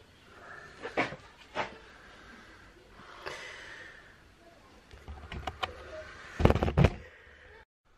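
Metal tools and gear being handled on a workbench during home lead casting for jig heads: a couple of sharp clicks about a second in, a short hiss about three seconds in, then a quick run of knocks ending in several loud thuds about six and a half seconds in, cut off suddenly near the end.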